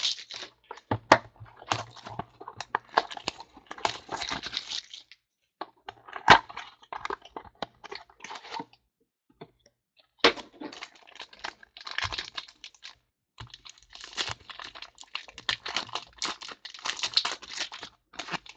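Trading cards and their pack wrapping being handled: crinkling and tearing with sharp clicks, in irregular bursts broken by short pauses.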